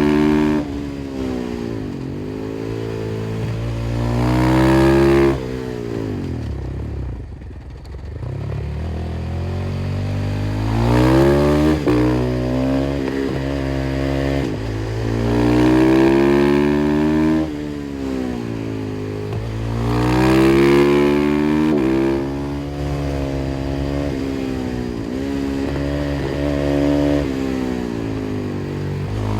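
KTM 500 EXC-F single-cylinder four-stroke motorcycle engine through an FMF exhaust, ridden hard: it accelerates several times, its pitch climbing and dropping back as it goes up through the gears. About five seconds in, the rider backs off and the pitch falls away for a few seconds before the engine pulls again.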